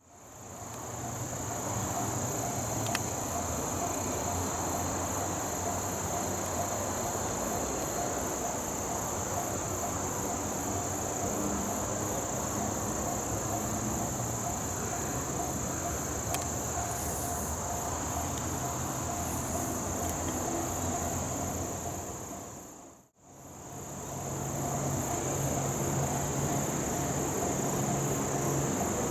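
Insects chirring in a steady, high-pitched chorus over a low, steady rumble. The sound briefly cuts out and fades back in about 23 seconds in.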